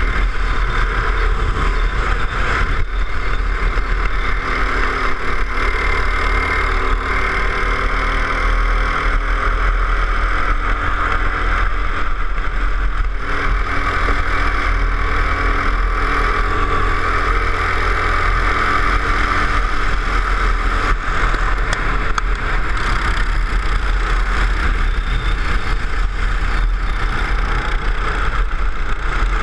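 Go-kart engine running hard around a circuit, its pitch rising and falling as the kart brakes and accelerates through the corners, with wind buffeting the onboard microphone.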